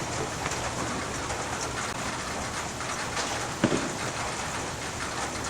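Steady rain falling, an even hiss with faint scattered patters, and one brief thump a little past halfway.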